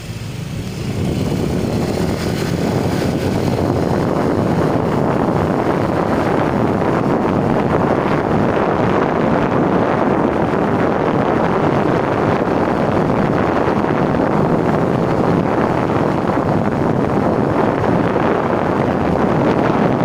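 Loud wind noise buffeting a motorcycle rider's headset microphone while riding. It rises about a second in and then holds steady.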